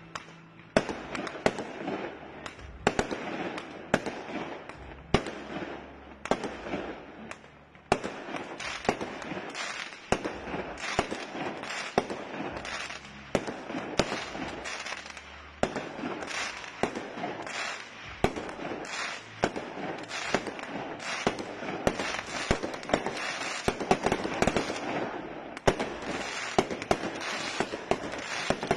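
Aerial fireworks display: shells bursting in a long, irregular run of sharp bangs, at times several a second, with a few especially loud ones standing out.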